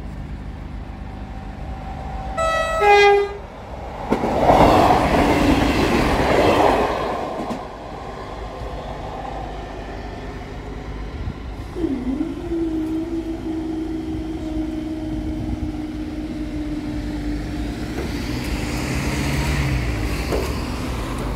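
A diesel passenger train sounds a short two-tone horn, a higher note then a lower one, a couple of seconds in. It then runs loudly over the level crossing for about three seconds and fades away. About twelve seconds in, the barrier machinery starts with a brief dip in pitch and then hums steadily as the barriers lift.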